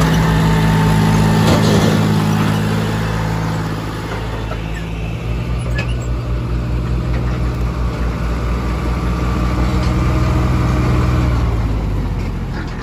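John Deere 5050 D tractor's diesel engine working hard under load, pulling a loaded trolley through mud. Its note eases off about four seconds in, then builds again at a lower pitch.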